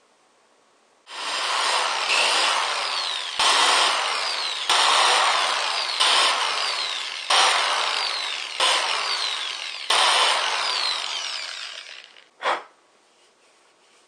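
Corded electric drill boring 3/8-inch holes through the rubber cup of a toilet plunger. It runs in about eight stretches, each starting abruptly, with one short blip of the drill near the end.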